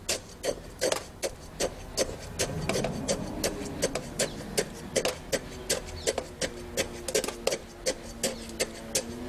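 Steel tamping rod stroked repeatedly into fresh concrete in a slump cone while a layer is rodded for a slump test: an even run of sharp clicks, about two to three a second.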